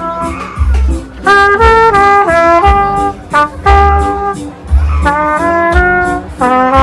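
Background music: a lead melody of short held notes stepping up and down over repeated deep bass beats.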